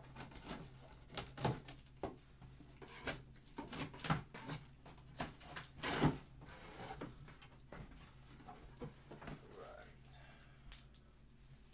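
A cardboard shipping box being opened by hand and its contents handled: irregular rustles, scrapes and sharp knocks.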